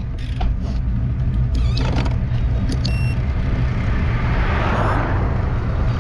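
Steady low wind rumble on the microphone of a road cyclist riding, with road noise; a rush of noise swells and fades about four to five seconds in, and a short high beep sounds about three seconds in.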